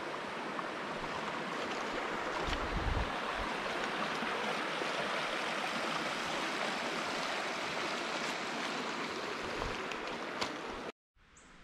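A small rocky creek riffling over stones and a low cascade: a steady rushing of water. It cuts off abruptly about eleven seconds in, leaving only a much quieter woodland background.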